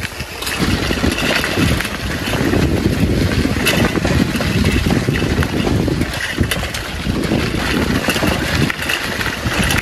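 Wind buffeting the microphone of a moving bicycle, with tyre noise from the dirt track and a few brief rattles over bumps.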